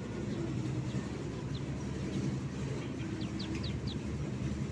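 Ducklings peeping: a single short high peep about a second and a half in, then a quick run of four near the end, over a steady low hum.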